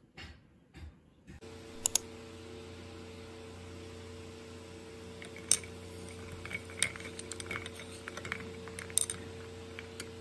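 A metal spoon stirring iced coffee in a ceramic mug, the ice cubes clinking against the spoon and the mug in scattered sharp clicks, over a steady low hum. It opens with a soft handling of a paper pad before the hum comes in.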